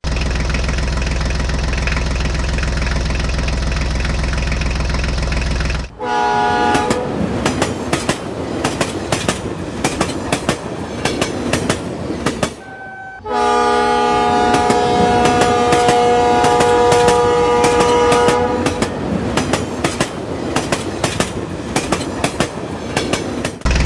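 Toy train running on plastic track with fast, even clicking and clattering of wheels and couplings. A train horn sounds briefly about six seconds in, then is held for about five seconds from about thirteen seconds in.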